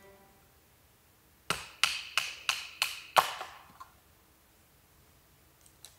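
Six sharp strikes, one about every third of a second, each with a brief ring, followed by one weaker strike and then a faint click near the end.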